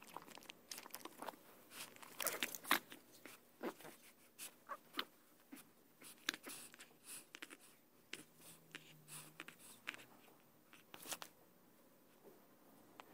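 A pug puppy mouthing and tugging at a plush teddy bear: irregular soft clicks, snaps and scuffs, thickest in the first few seconds, thinning out, with another brief cluster near the end.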